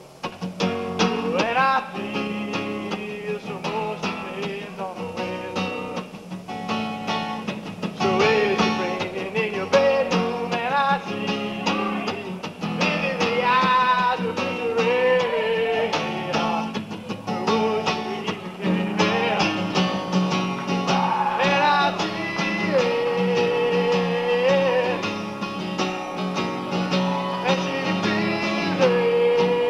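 A song on acoustic guitar, strummed, with a voice singing the melody over it.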